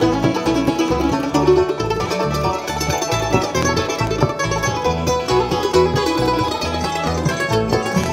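Bluegrass band playing an instrumental break: quick plucked-string picking over a steady bass line, with no singing.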